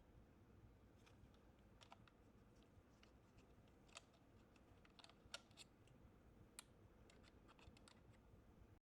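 Faint, irregular small plastic clicks and taps against near silence, from handling the electric screwdriver kit's rotating 50-bit holder. The clicks are a little louder just after five seconds and again around six and a half seconds in.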